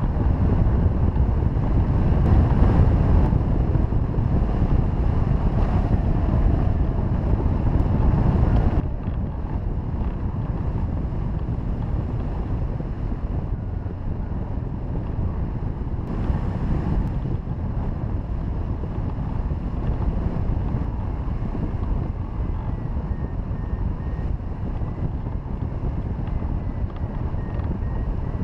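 Wind rushing over the microphone of a hang glider in flight, a steady low rush that drops a little and loses some of its hiss about nine seconds in.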